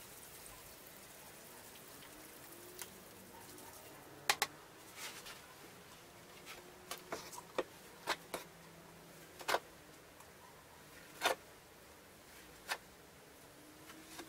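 Scattered sharp taps and knocks, about nine of them at uneven intervals, from a plastic bowl and bucket being handled.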